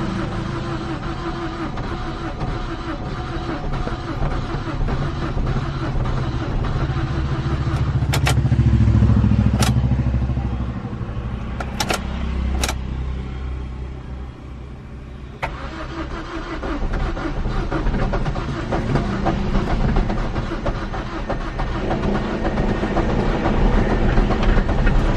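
Maruti Suzuki Ritz engine cranking over and over on its starter motor without catching, a hard start after about four months standing unused. The cranking swells and fades, eases off for a moment about halfway through and then resumes, with a few sharp clicks in the middle.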